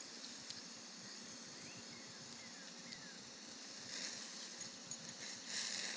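Faint hiss of a small lawn sprinkler's water spray, swelling briefly about four seconds in and again near the end.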